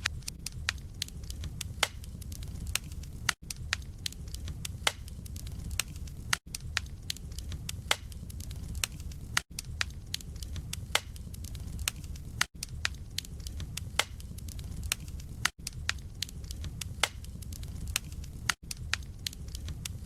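Wood logs burning in a fireplace: a steady low rumble of flames with frequent sharp, irregular crackles and pops. About every three seconds the sound cuts out for a moment.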